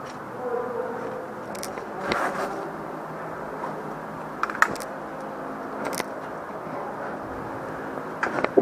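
Airsoft guns firing scattered shots in an indoor arena: about eight sharp cracks at irregular intervals over a steady buzzing hum.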